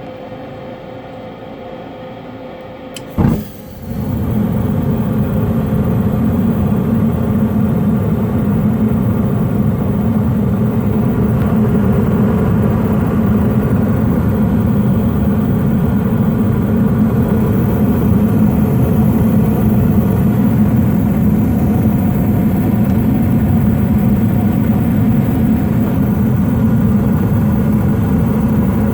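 Amana gas furnace running on propane: a steady hum, then about three seconds in the burners light with a sudden whoosh, followed by the steady low rumble of the burner flames.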